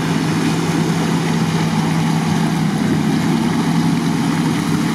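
Jeep Grand Cherokee WJ's V8 engine running at a steady low pitch as the 4x4 crawls through a flooded bog, its tyres churning through water and mud.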